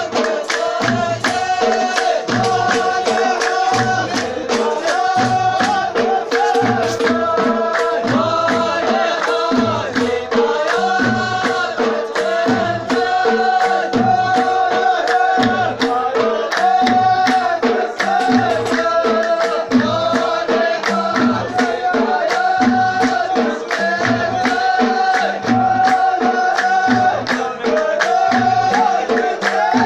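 Folk music: a sung melody over a steady, even drum beat, with sharp percussive strokes and a held tone underneath.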